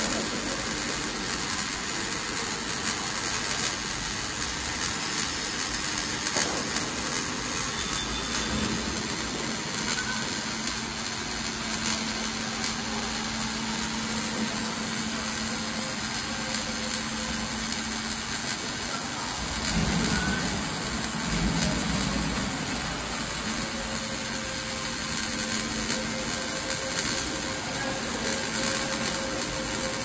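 Welding arc of an automatic water heater tank welding machine, crackling and hissing steadily as it welds a seam around the turning tank. A louder low rumble swells for about two seconds around two-thirds of the way through.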